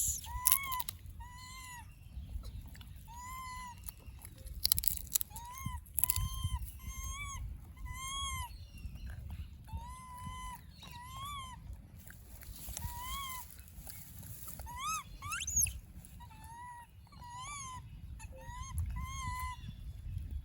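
Baby monkey giving short, high, squeaky cries over and over, about one a second, each rising and falling in pitch, over a low rumble.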